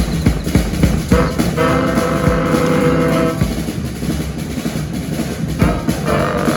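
Brass band playing: the horns hold a full chord for about two seconds and come back in with another near the end, over a steady drum-kit beat.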